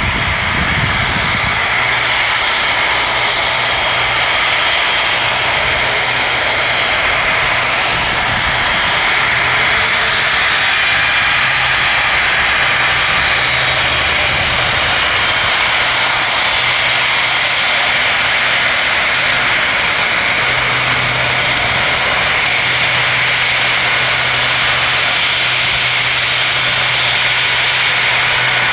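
Boeing 747-400F freighter's four jet engines running: a loud, even rush with a thin high whine held on one note.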